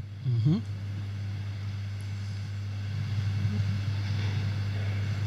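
A steady low hum, with a brief voice-like glide about half a second in.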